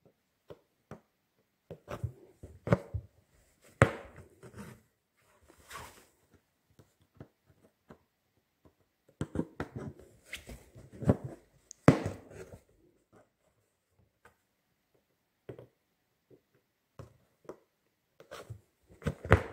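Embroidery needle being pushed and pulled through fabric stretched taut in a wooden hoop, with irregular soft taps and short rustles as the thread is drawn through, and two sharper knocks.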